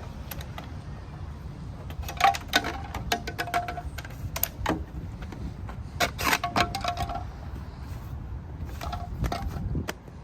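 Irregular clattering knocks and clicks, with a few brief squeaks, as a makeshift raft bumps its way down a flight of stairs.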